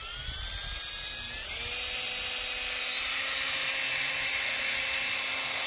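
Cordless drill with a twist bit boring through a painted steel plate: the motor whine rises in pitch over the first second or so, then runs steadily at speed with a loud hiss of the bit cutting metal.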